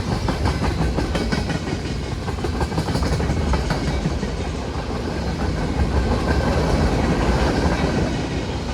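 CSX freight train's cars rolling past, with a steady rumble and many sharp clicks from the steel wheels on the rails.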